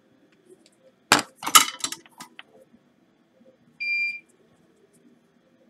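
A quick cluster of sharp clicks and clinks from small tools being handled at a microsoldering bench about a second in, then a single short, high electronic beep near four seconds.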